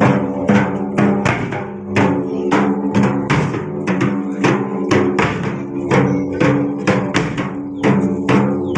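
Dhol drums beating a steady rhythm of strokes, about two to three a second, over a steady sustained tone.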